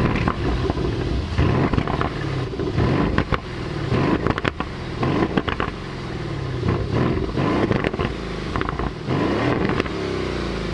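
Aston Martin Vantage Roadster's twin-turbo V8 engine revving, its pitch climbing and falling again and again.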